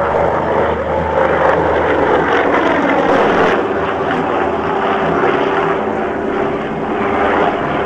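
Douglas DC-2 airliner's twin radial piston engines and propellers droning steadily as it flies past overhead, the pitch dropping slightly about three seconds in as it passes.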